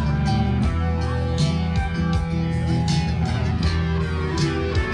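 Small street band playing amplified guitar music through PA speakers, guitars over a steady beat.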